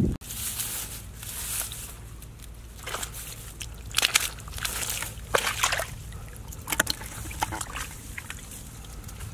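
Hands squelching and sloshing through wet mud and shallow water, in short irregular bursts.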